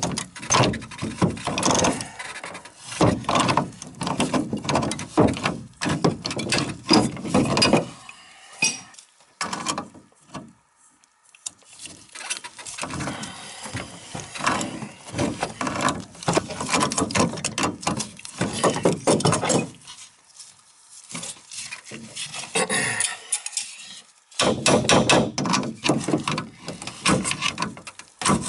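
Wrenches working at a tight fitting on an old metal tub drain pipe: rapid metal clanking, knocking and scraping, dropping away briefly about nine seconds in and again about twenty seconds in.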